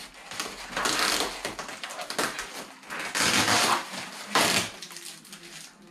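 Clear plastic wrapping rustling and crinkling in several bursts as a model airplane wing panel is pulled out of it.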